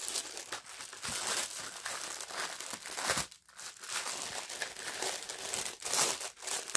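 Clear plastic bag being crinkled and pulled off by hand to unwrap a package, a continuous crackling with a brief pause about halfway.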